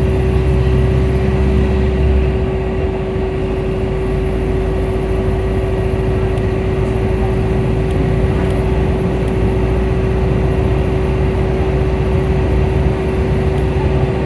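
Volvo B5L hybrid bus running, with a steady whine held at one pitch over a rumbling ride noise. The low rumble drops away about two seconds in while the whine goes on unchanged.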